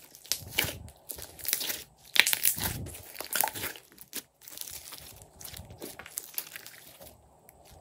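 Glossy slime squeezed and kneaded by hand, making irregular wet crackling and squelching sounds, loudest about two and three and a half seconds in and thinning out near the end.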